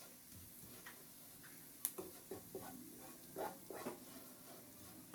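Faint scraping and soft taps of a utensil stirring garlic, lemon zest and rosemary in melted butter in a pan, scattered and irregular.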